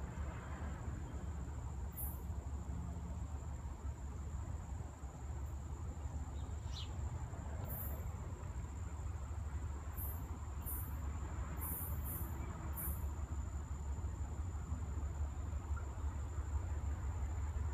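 Distant Alco C424 diesel locomotive approaching, heard as a steady low rumble that grows a little louder toward the end, with insects chirping in short high bursts several times in the middle.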